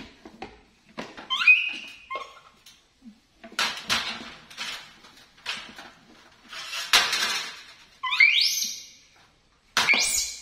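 Pet monkey squealing: four short calls that each sweep sharply upward in pitch, two in the first couple of seconds and two near the end, with loud noisy bursts between them.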